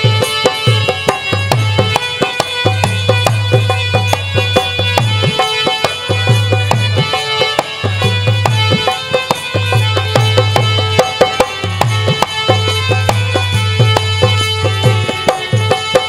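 Dholak played with both hands in a quick, driving rhythm, deep bass strokes in runs under sharp slaps, with harmonium notes held steadily over it: the instrumental passage of a bhajan, no singing.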